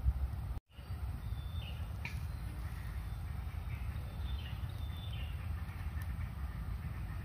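A few faint, short falling bird chirps over a steady low rumble. The sound drops out to silence for a moment about half a second in.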